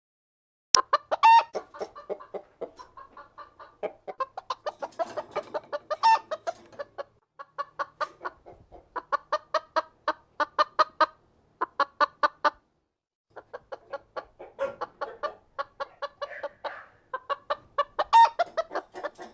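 Chickens clucking in rapid runs of short notes, with a few louder squawks near the start, about six seconds in and near the end, and a brief pause about two-thirds through.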